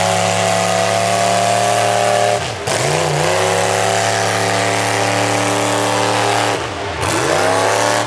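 Engine of a lifted full-size Chevy SUV mud truck held at high, steady revs as it churns through a mud pit. Twice, about a third of the way in and again near the end, the revs dip briefly and climb back up.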